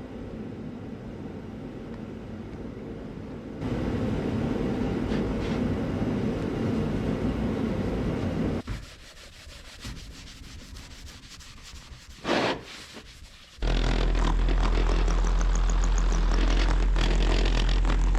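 A brass splash cymbal being scrubbed and buffed in several short cut-together stretches of steady rubbing noise, some louder and some softer. The last stretch, near the end, is louder and has a steady low hum under the rubbing.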